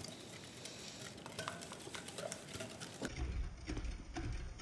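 Egg yolks being beaten with sugar in a bowl: faint, quick clicks and taps of the beater against the bowl. About three seconds in, a low steady hum comes in under them.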